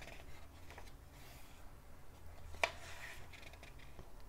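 Faint rustle of a thick paperback book's paper pages being turned by hand, with one sharp flick of a page about two and a half seconds in, over a low steady room hum.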